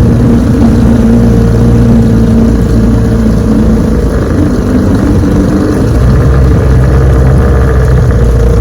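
1966 Evinrude 9.5 hp two-cylinder two-stroke outboard running steadily, then throttled back about three seconds in and settling into a smooth idle from about six seconds on.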